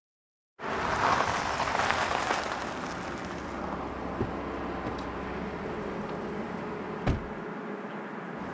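An SUV's engine running as it sits on a dirt road, loudest in the first couple of seconds after it pulls up. About seven seconds in there is a sharp click with a low thump as the door opens, and the engine's low hum stops just after.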